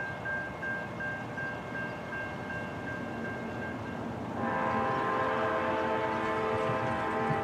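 Grade-crossing warning bell dinging in quick, even strokes. A little over four seconds in, an approaching train's multi-chime air horn starts a long blast, louder than the bell.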